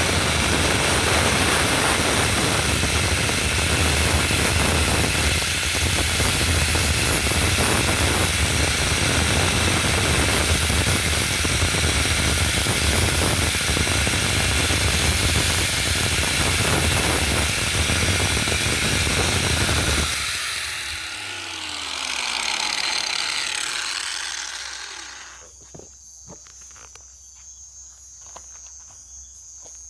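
Electric power tool working wood, running steadily and loudly, then switched off about twenty seconds in and spinning down with falling pitch. Afterwards only faint ticks and a high insect-like chirring remain.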